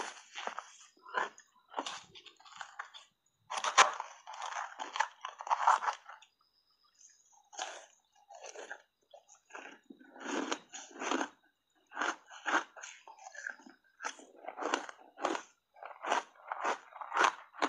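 Refrozen shaved ice coated in matcha powder being bitten off in big bites and chewed: a long series of sharp, crackly crunches, with a brief lull about six seconds in.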